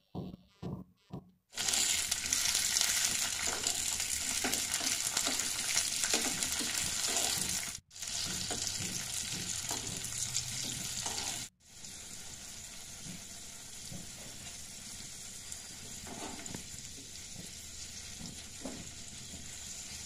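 Cashews and raisins sizzling as they fry in hot ghee in a small tempering pan, stirred with a spoon. The sizzle starts about a second and a half in, breaks off sharply twice, and is quieter after the second break.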